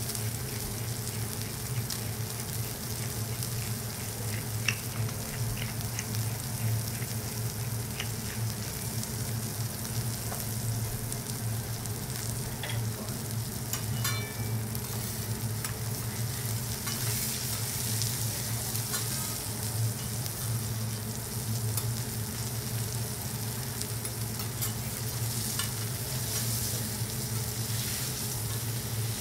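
Food sizzling on a teppanyaki iron griddle, a steady frying hiss with scattered light clicks, over a steady low hum.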